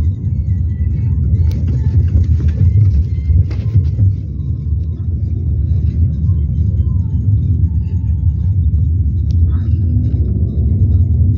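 Steady low road rumble of a moving car, its engine and tyres heard from inside the cabin.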